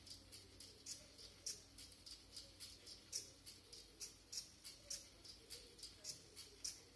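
Faint, quick clicking from a small LEGO robot's arm mechanism, about three to four sharp ticks a second at a slightly uneven pace.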